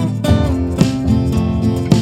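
Background music led by strummed acoustic guitar, with chords struck about every second.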